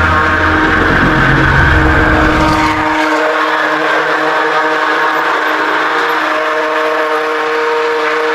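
Handheld immersion blender running steadily, its motor giving a constant whine as it blends a thick liquid mix in a cup. A low rumble underneath drops away about three seconds in.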